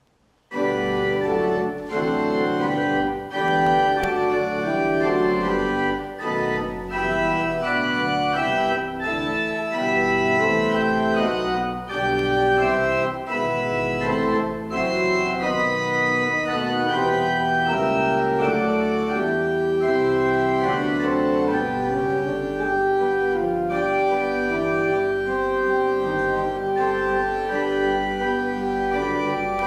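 Church pipe organ playing full sustained chords as the closing voluntary, coming in suddenly about half a second in.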